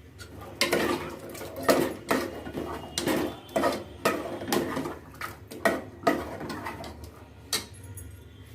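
A metal spoon knocking and scraping against a metal cooking pot, about a dozen irregular clanks with a short ring.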